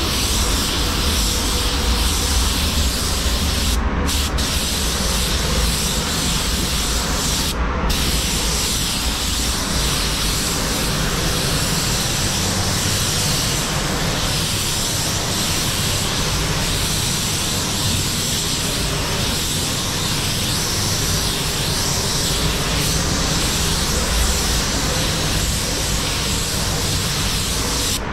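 Steady rushing hiss of a compressed-air paint spray gun over the paint booth's air flow, with two short breaks in the hiss in the first eight seconds.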